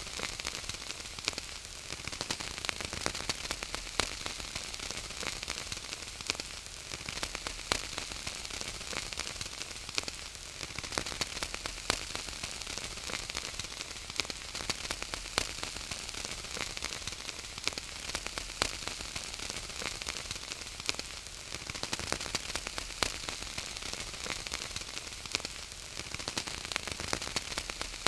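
Wood fire crackling: a steady hiss with many small sharp pops and snaps.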